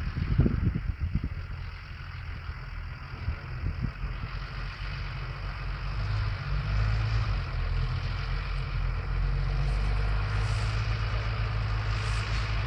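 Diesel engines of a Same Iron 160 and a Valtra T190 tractor working steadily under load, pulling ploughs; the drone grows louder about halfway through as they come closer. Low wind thumps on the microphone in the first second or so.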